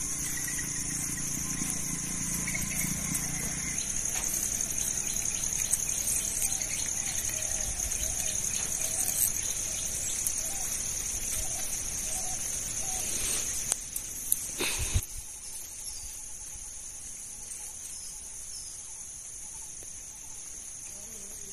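A steady, high-pitched insect chorus, with a few sharp knocks about two-thirds of the way through.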